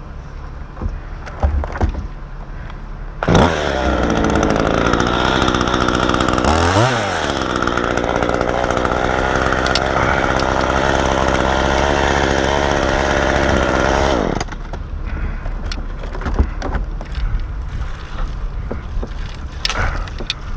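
Chainsaw running at full throttle for about eleven seconds, cutting wood; its pitch dips briefly under load about seven seconds in and recovers, then it cuts off. A lower engine rumble and scattered knocks are heard before and after.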